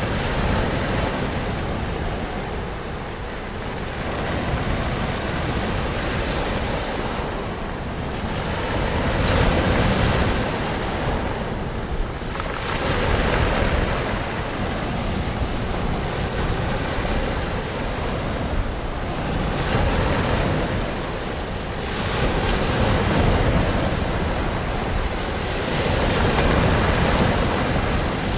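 Ocean surf: waves rolling in and washing out in a continuous rushing wash that swells and eases every few seconds.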